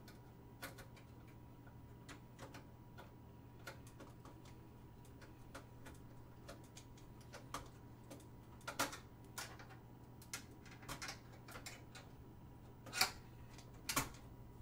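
Irregular light clicks and taps of cables, plastic connectors and metal parts being handled inside an open computer case while the motherboard and its wiring are worked loose, growing more frequent in the second half with a louder knock near the end. A faint steady hum sits underneath.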